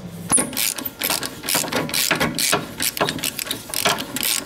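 Hand ratchet clicking in quick, irregular strokes as it turns out a rear brake caliper bracket bolt on a 2008 VW Passat.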